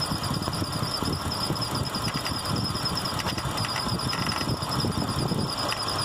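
Mitsubishi Nativa engine idling with a fast, high-pitched chirping squeal (the 'pajarito') and scattered light knocking ticks. The squeal comes from a bent water pump and the knocking from a faulty accessory-belt auto-tensioner.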